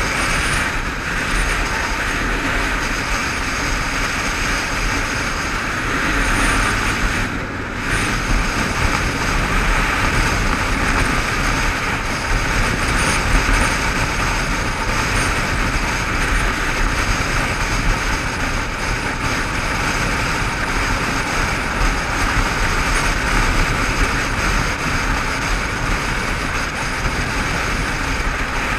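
Motorcycle cruising at speed on a dual carriageway: steady wind noise over the camera with the engine and tyres droning beneath, briefly dipping about seven seconds in.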